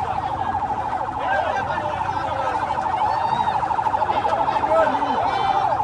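A siren-like tone, held steady in pitch but warbling rapidly, sounds throughout, with scattered short rising-and-falling calls around it.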